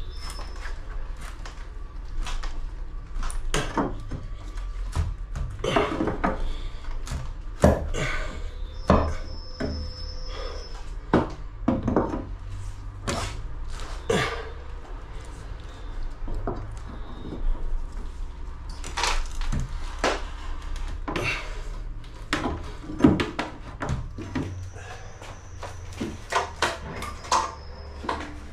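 Timber wall framing being wrenched and levered out by hand: irregular wooden knocks, bangs and creaks, with a short high squeak about nine seconds in. The pieces are nailed in and are being forced out.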